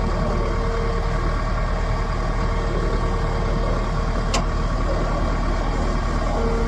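Heavy diesel engine running steadily, a low rumble with a constant whine above it. A single sharp click about four and a half seconds in.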